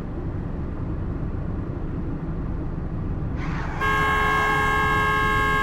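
A steady low rumble, then about two thirds of the way in a vehicle horn sounds and is held steadily for about two seconds.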